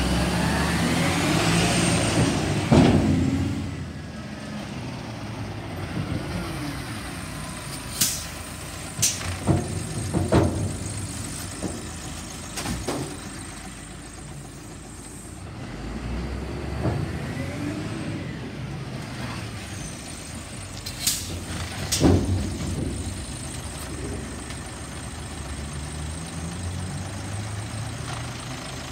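Rubbish collection truck's engine revving up as it moves off, twice, idling between, with several sharp clanks and short hisses scattered through.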